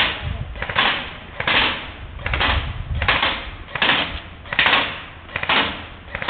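Footsteps crunching through dry fallen leaves and brush at a walking pace, about eight even steps, a little more than one a second.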